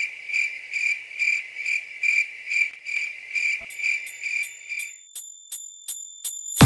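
Cricket-chirp sound effect: a high chirp repeating evenly about two and a half times a second, the comedy cue for an awkward silence. About four seconds in a quick high ticking joins it; the chirping stops about a second later while the ticking runs on.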